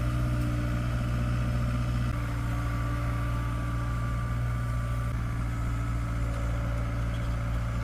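Heavy machine's engine running steadily at idle, a low even hum with a faint whine above it.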